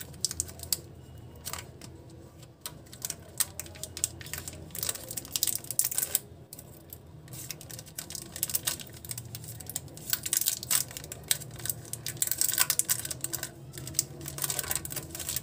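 Shiny plastic wrapper of a chocolate wafer bar crinkling and crackling as fingers pick and tug at its sealed end to tear it open. Many small irregular clicks, busier in the second half.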